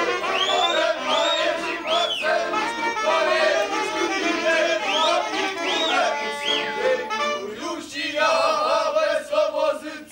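Accordion playing a călușari dance tune. Twice, the dancers give three short, high, rising-and-falling whooping shouts over it.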